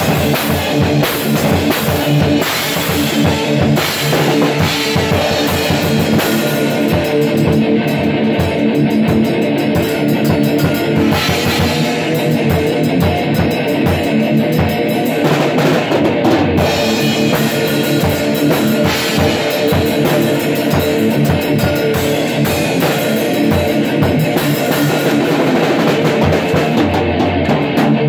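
Live rock jam: an electric guitar played hard over a full drum kit, loud and continuous.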